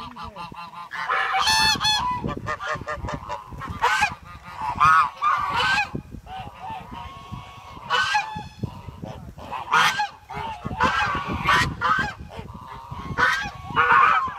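A flock of birds calling loudly over and over, with many short, harsh pitched calls overlapping.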